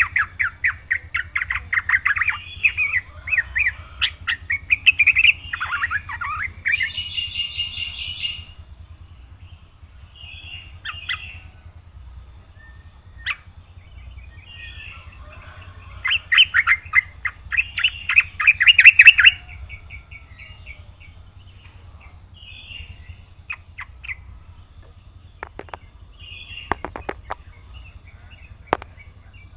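Sooty-headed bulbul (trucukan) singing in bursts of fast chirping notes: a long burst over the first eight seconds and another about halfway through, with scattered short calls between and a few sharp clicks near the end.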